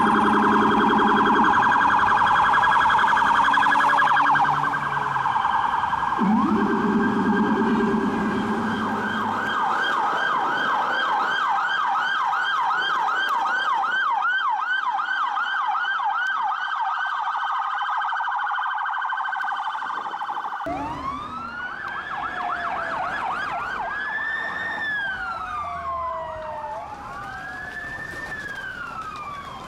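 Emergency vehicle sirens sounding together, first in a fast yelp of several sweeps a second, then switching about two-thirds in to a slow rising-and-falling wail. The sirens fade slightly towards the end.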